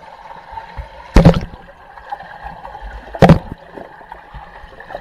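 Water splashing twice, about two seconds apart, over a steady sound of moving water.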